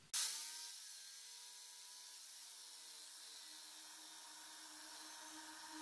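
Bosch PST pendulum-action jigsaw with a Wolfcraft blade, switched on with a sudden start and running steadily as it cuts through a board. It is heard faintly.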